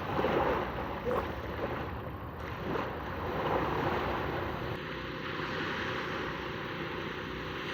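Waves washing onto a sandy beach, rising and falling in slow swells, with wind rumbling on the microphone.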